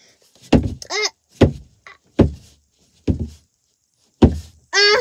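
A battery push-button LED tap light clicked on and off, five sharp clicks a little under a second apart, with short vocal sounds from a child between them.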